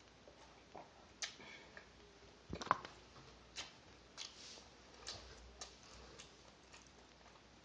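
Scattered light clicks and taps from eating and handling food, the loudest cluster about two and a half seconds in.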